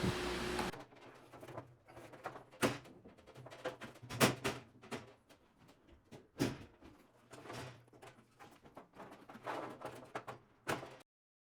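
Irregular clicks, knocks and light clatter of washer-dryer parts being handled and fitted back together, with sharper knocks about two and a half, four and six and a half seconds in. It cuts off to silence near the end.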